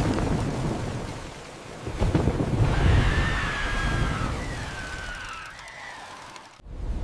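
Tornado storm sound effects: heavy rumbling with a rain-like hiss, swelling twice. A high whistling tone wavers and glides downward through the middle.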